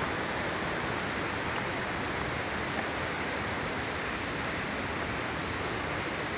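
Steady rushing noise of a waterfall, even and unbroken.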